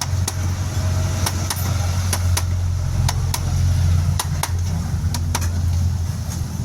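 Metal tools tapping on a bicycle's headset parts: about a dozen sharp, irregular taps over a steady low hum.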